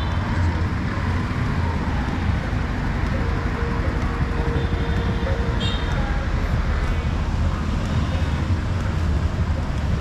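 Steady city street traffic: a continuous rumble of passing motor vehicles and road noise, with a few brief high tones over it.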